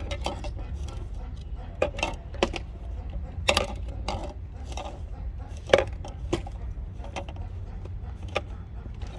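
A string of light, irregular clicks and clinks of hard objects knocking together while handled, over a steady low rumble.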